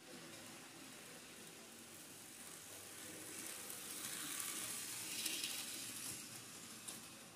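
Model train running past close by: a steady hiss of its motor and wheels on the rails that grows louder, peaks about five seconds in, then fades.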